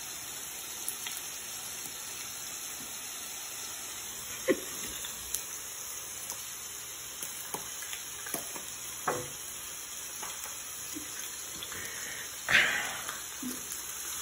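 Onion slices sizzling in oil on a hot electric tabletop griddle: a steady hiss with a few light clicks and taps. About twelve and a half seconds in comes a sudden louder hiss that fades within half a second.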